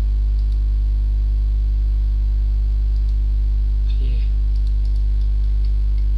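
Loud, steady electrical mains hum at about 50 Hz with a ladder of overtones, picked up in the microphone's recording chain. A brief faint voice sound comes about four seconds in.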